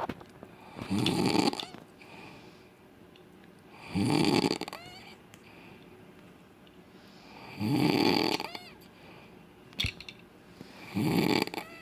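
A man snoring loudly and rhythmically, four snores about three and a half seconds apart. A single sharp click comes just before the last snore.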